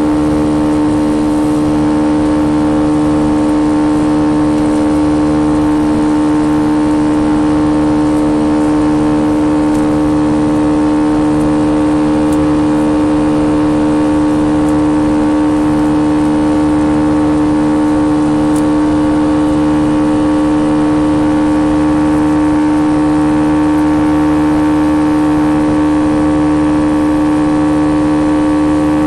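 Jet engines of a Boeing 737 at climb power just after takeoff, heard inside the cabin: a loud, steady drone with a strong constant hum and several steady higher tones over a rushing noise.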